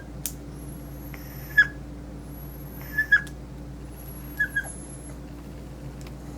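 A small puppy giving short, high yelps: one, then two quick pairs, a sign of a frightened young dog resisting grooming. A steady low hum runs underneath.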